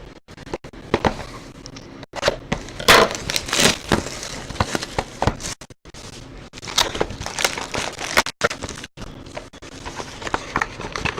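Plastic wrapping on a sealed box of trading cards crinkling and tearing as it is opened, in irregular rustling bursts with small sharp clicks and knocks.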